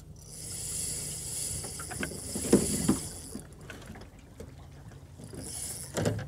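Knocks and clunks on a small boat's hull as fishing rods and gear are handled, the loudest two about two and a half to three seconds in and another just before the end, over a steady high hiss in the first half.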